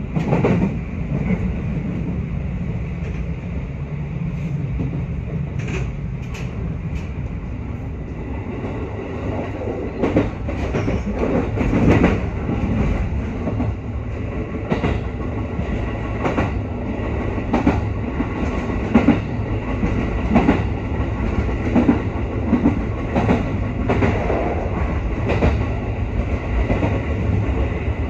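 Interior sound of a JR West 221 series electric train running along the line: a steady low rumble, with the wheels clacking over rail joints. The clacks come more often after about ten seconds.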